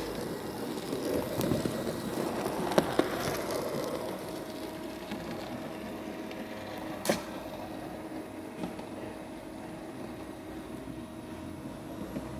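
OO9 narrow-gauge model train running along the track: a steady rolling rumble with a few sharp clicks. It is louder over the first few seconds, then eases off as it runs on.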